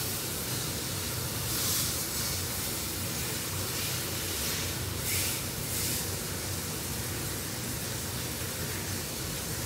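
Steak frying in a hot pan on the stove: a steady sizzling hiss with a low hum underneath, swelling briefly a few times.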